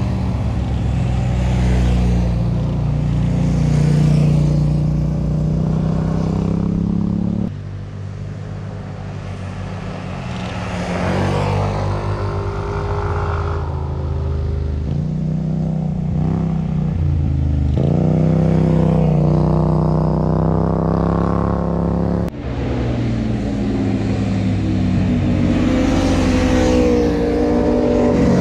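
Motorcycles passing through a bend one after another, their engines revving with pitch rising and falling as they go by. The sound changes abruptly twice, where one pass cuts to the next.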